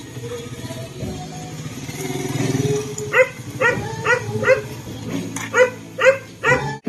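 A dog barking repeatedly, about eight barks at roughly two a second starting about three seconds in, over the steady running of a motorcycle engine.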